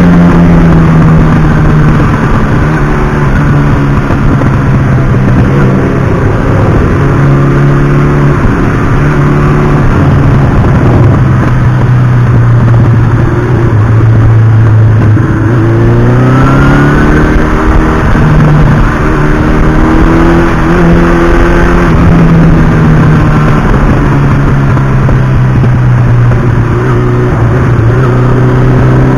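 Motorcycle engine running while riding, its note dropping and climbing several times with throttle and gear changes, over a steady rushing noise.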